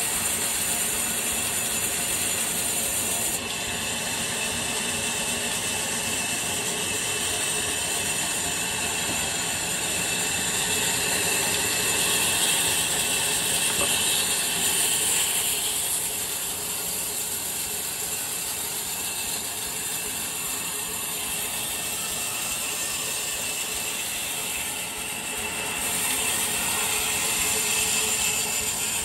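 Large wheeled band saw running and cutting through a log: a continuous mechanical racket with a strong high hiss, its tone and loudness shifting a few times as the log is worked through the blade.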